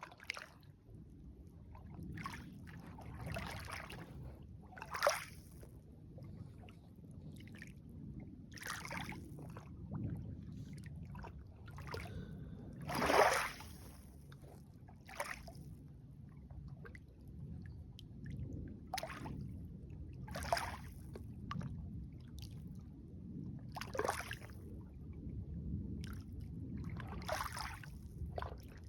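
Lake water lapping and sloshing in short irregular splashes every second or two, over a low steady rumble; the loudest splash comes about halfway through.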